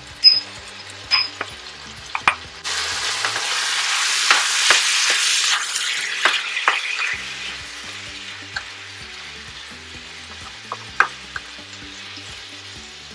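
Beef cubes with onions frying in hot oil in a nonstick pan, stirred with a wooden spatula that clicks and scrapes against the pan. The sizzling surges abruptly about three seconds in, stays loud for a few seconds, then dies back to a low fry.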